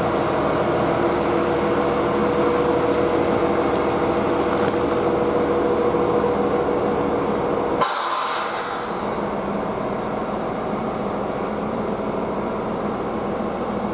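JR Hokkaido H100 series diesel railcar standing at the platform with its engine running, a steady hum. About eight seconds in, a sudden sharp hiss of released air fades over about a second, and the hum then drops lower.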